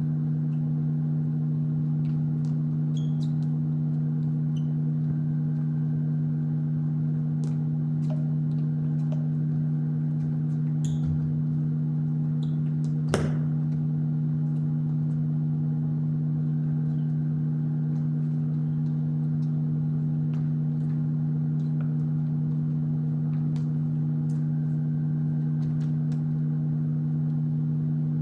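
Steady low hum of two unchanging tones, with faint scattered light taps and one sharper tap about halfway through.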